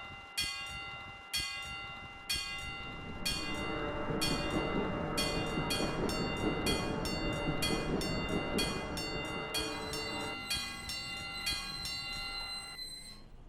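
Railroad crossing warning bell ringing about once a second, the crossing bell of a Japanese level crossing, while a train rumbles past, building from about three seconds in and fading away near the end; the bell stops just before the end.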